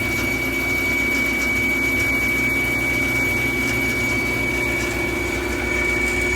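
Bandsaw running freely with no cut under way: a steady motor hum with a high, steady whistle over it, a whistle the woodworkers find weird and take as a sign to check the saw.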